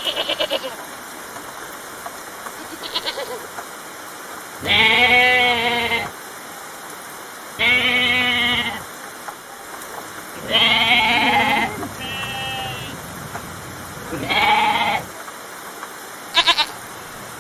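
Goat bleating, five long quavering bleats about three seconds apart over a steady background hiss.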